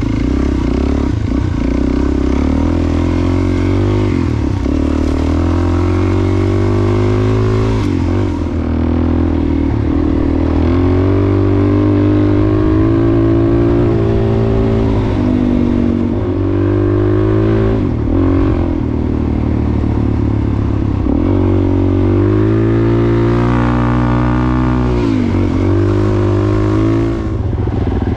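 Dual-sport motorcycle's single-cylinder four-stroke engine heard from the rider's seat on the move, its revs climbing and falling every few seconds as the rider shifts and rolls the throttle on and off.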